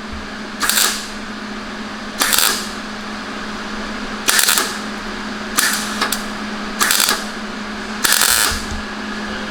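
MIG welder laying short tack welds: six brief crackling bursts, each under half a second, over a steady low hum. The welder's heat is turned down to setting 2.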